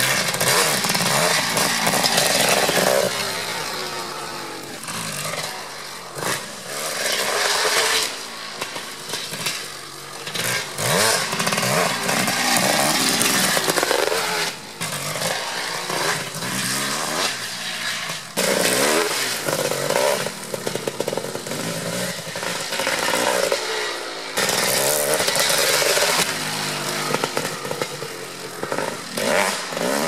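Kawasaki KX500's single-cylinder two-stroke engine revving hard as the dirt bike is ridden. The throttle is opened and shut over and over, so the pitch climbs and falls, with a few abrupt jumps in the sound.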